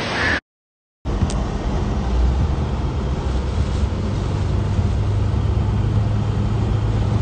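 Storm rain and wind cut off abruptly; after a moment of silence comes a steady low rumble of a motor vehicle running, heard from inside it, with a hiss over it.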